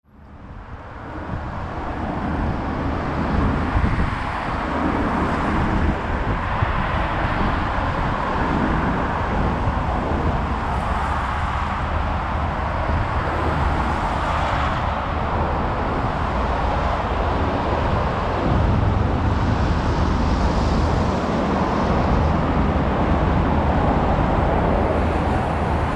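Steady road traffic, cars passing in a continuous wash of noise, fading in over the first couple of seconds.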